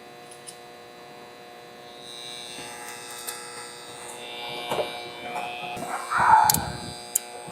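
A steady electrical hum of several even tones, with light clicks and rustling of hands working in an HVAC unit's electrical panel. A louder clatter comes about six seconds in, and sharp clicks follow.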